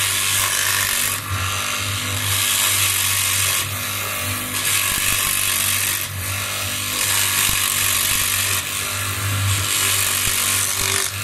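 A motor-driven machine running with a steady low hum, under a loud rasping, grinding noise that swells and eases every second or two.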